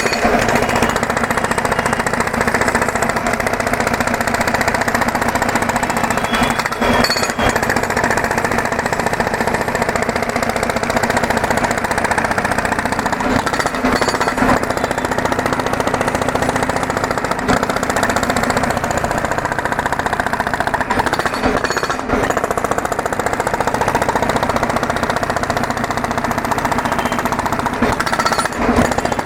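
Two-stroke petrol road drill (breaker) hammering continuously at a steady rapid rate.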